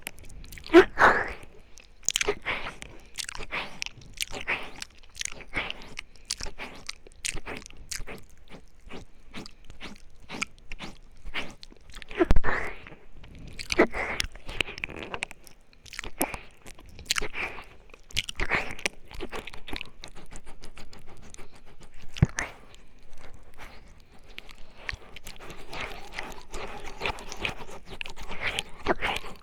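Close-miked ASMR mouth sounds: irregular wet clicks, smacks and licking noises, with a few louder smacks along the way.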